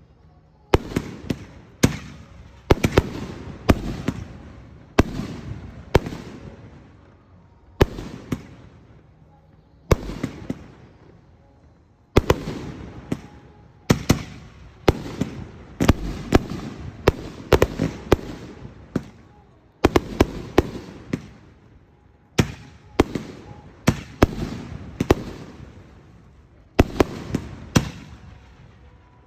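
Aerial firework shells bursting one after another in a display, sharp booms coming in quick clusters with short gaps, each trailing off over about a second.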